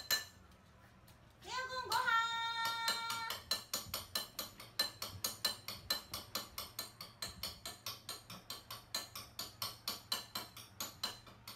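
A person's sing-song voice for about two seconds, then a fast, even ticking at about five a second until near the end.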